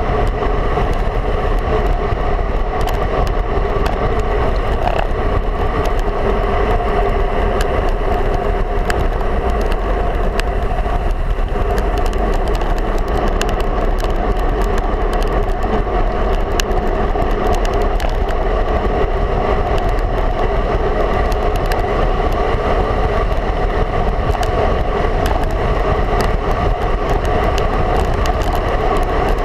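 Steady wind rush over a handlebar-mounted camera, with the hum of road-bike tyres rolling on asphalt and occasional small clicks.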